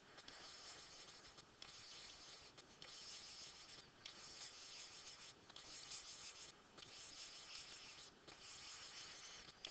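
Faint scratching of a stylus scribbling on a writing surface, colouring in small circles one after another, in spells of about a second broken by brief pauses.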